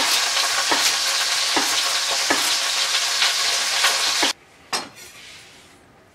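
Wild boar leg sizzling as it browns in a roasting pan, with a chef's knife chopping carrots on a wooden cutting board, a sharp strike about every second. Both cut off suddenly about four seconds in, followed by a single knock of the knife against the board.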